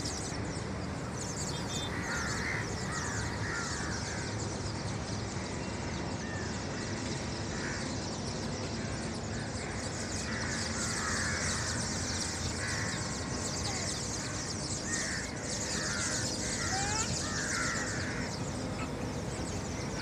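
Huge flock of starlings in a murmuration, a continuous dense chatter of many harsh calls overlapping at once.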